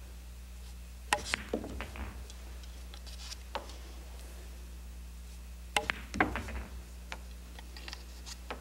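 Pool shots: two quick clusters of sharp clacks about five seconds apart, each a cue tip striking the cue ball followed by billiard balls colliding. A few lighter single ball clicks fall between them.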